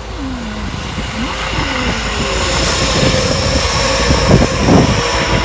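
Seibu Railway electric train approaching, its running noise building steadily, with a thin high whine over it.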